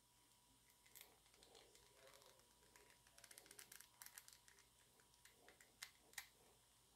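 Near silence with faint small clicks and taps of action-figure parts being wiggled into place: a cluster a little past the middle, then two sharper ticks near the end.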